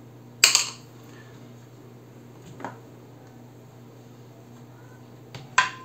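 Metal hand tools clinking on a workbench as they are picked up and set down: a sharp clink about half a second in, a faint knock near the middle and two more clinks near the end, the last ringing briefly, over a steady low hum.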